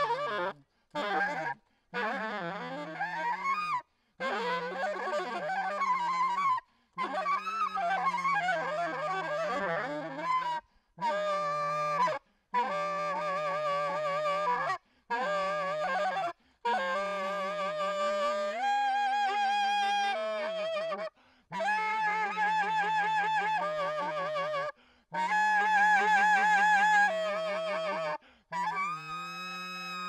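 Solo saxophone in free improvisation: honking, squealing phrases broken by quick breaths. The pitch slides and wavers in the first half; later the phrases settle into held notes with a fast wobble.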